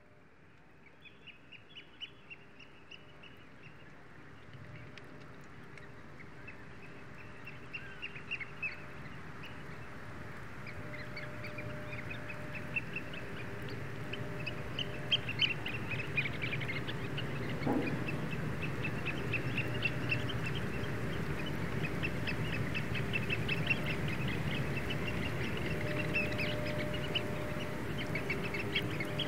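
A flock of waterbirds calling, with many short overlapping calls repeated throughout. The sound fades in gradually over the first dozen seconds.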